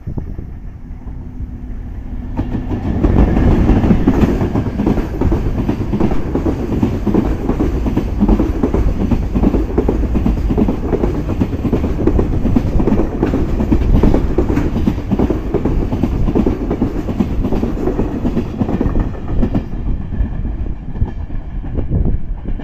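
Train passing at speed, its wheels clattering over the rail joints; the noise builds up about two seconds in and starts to fade near the end.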